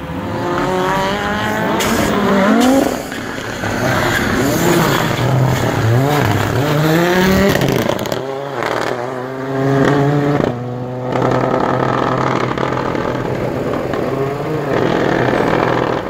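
Audi quattro S1-style rally car accelerating hard past, its engine pitch rising steeply and dropping back at each of several gear changes.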